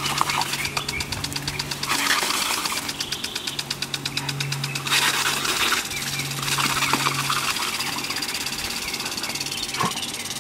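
Pop-up rotary lawn sprinkler spraying with a fast, even ticking, the spray hissing louder in short rushes a few times as a dog bites at the water jet. A steady low hum comes and goes underneath.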